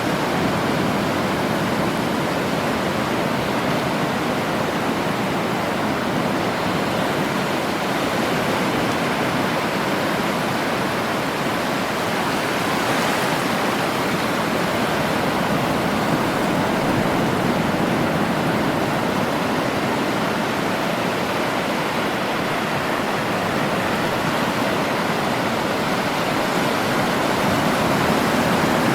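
Sea surf, a steady rushing wash of waves with no distinct breaks.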